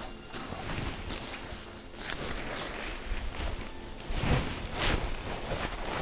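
Nylon tent fabric rustling and crinkling as it is handled and spread out on the ground, mixed with footsteps crunching on dry leaf litter. Irregular rustles, loudest a little past the middle.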